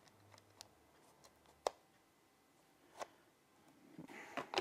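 A few sharp clicks and light handling noise from a DSLR camera body and a quick-release plate being fitted to it: one click a little over a second and a half in, another about three seconds in, and a cluster of small clicks and rustles near the end.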